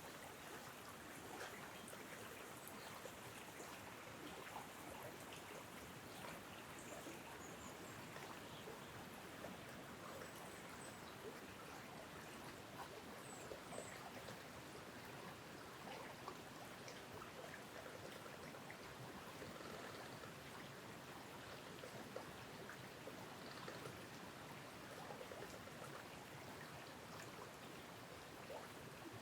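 Wind rustling through tree tops: a steady soft rushing hiss of leaves, with scattered faint ticks.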